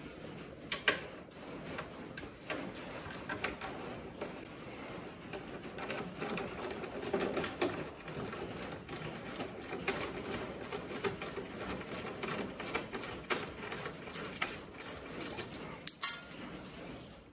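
Hand wrench working 10 mm bolts out of a side-by-side's front end: scattered small metallic clicks and ticks, with a sharper ringing metal clink near the end as loose hardware lands on the concrete floor.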